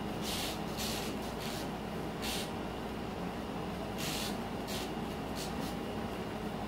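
Jacket fabric rustling in several short swishes as the garment is handled and pulled open, over a steady low hum of room noise.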